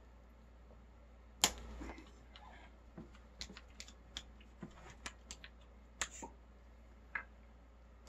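Scattered small clicks and taps of objects being handled, with one sharper knock about a second and a half in.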